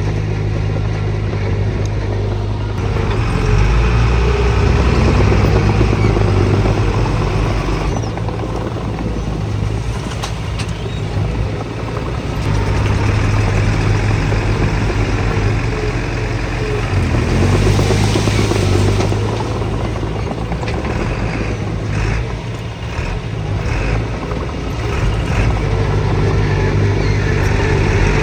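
Diesel engine of heavy earthmoving machinery running under varying load, its low drone swelling and easing several times, with a few knocks in the later part.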